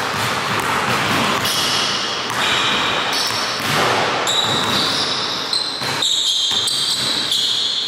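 A basketball being dribbled on a hardwood gym floor during one-on-one play.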